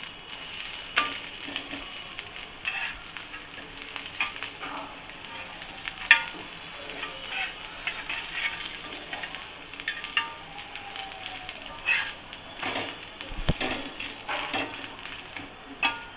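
Onion dosa frying in oil on a hot griddle, sizzling steadily, with frequent short sharp scrapes and taps, the loudest about six seconds in.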